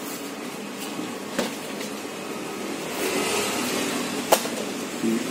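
Laminated paper book covers being handled and shuffled, with two sharp taps, over a steady mechanical hum.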